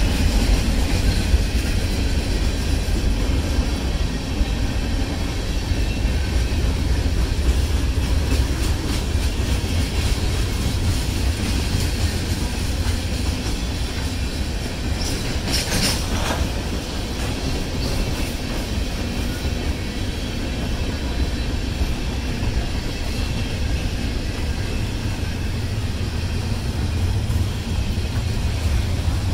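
Freight cars of a mixed freight train (tank cars, covered hoppers, container flats) rolling past on the rails: a steady, loud rumble of wheels on track. A brief high-pitched squeal rises above it about halfway through.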